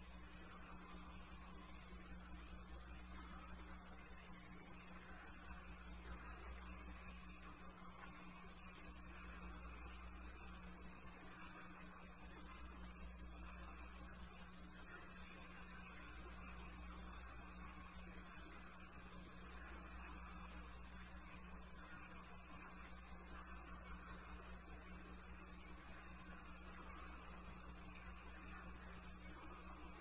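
Crickets chirping in a fast, even pulsing rhythm, with a short higher note four times, a few seconds apart.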